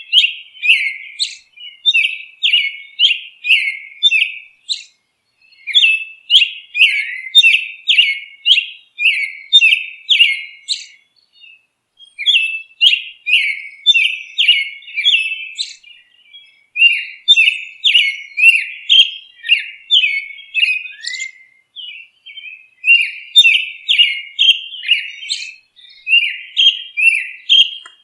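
A songbird chirping in quick repeated notes, about two a second, in runs of about five seconds broken by short pauses, with no other sound behind it.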